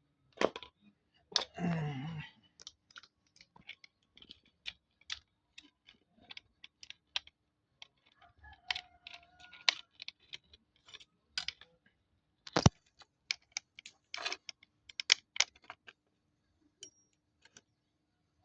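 Scattered, irregular clicks, taps and knocks of hands handling small hard parts and wire. There is a short scrape about two seconds in and a sharper knock about two-thirds of the way through. No motor is running.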